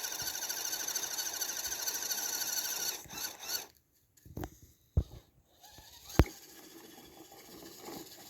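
Electric motor and gear drive of a Redcat Everest 10 RC rock crawler whining steadily as it climbs, cutting out about three seconds in. Then a few sharp clicks, two of them loud.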